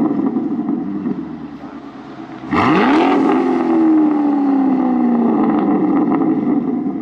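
Corvette C7 Grand Sport's 6.2-litre V8 through an AWE Touring cat-back exhaust, revved in a stationary rev test: the engine first settles back and quietens, then about two and a half seconds in is revved sharply to high rpm and held there, its pitch easing down slowly.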